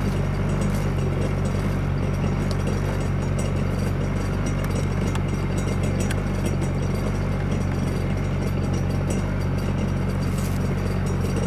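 2007 Kawasaki Ultra 250X jet ski's supercharged four-cylinder engine idling steadily, without revving, while antifreeze is fed through its cooling system for winterizing.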